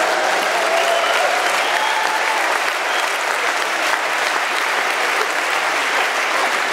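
Live audience applauding steadily, a dense even clapping, with a few faint voices over it in the first few seconds.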